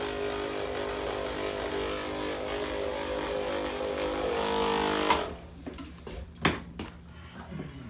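Percussion massage gun buzzing steadily against the back, then switched off about five seconds in. A sharp knock follows about a second and a half later.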